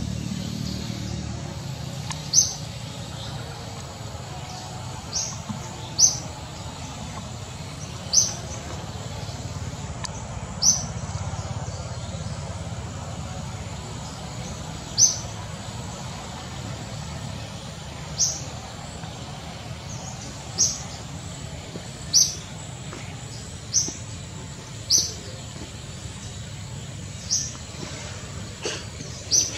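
A bird giving short, sharp, high chirps, one every one to four seconds, over a steady low rumble.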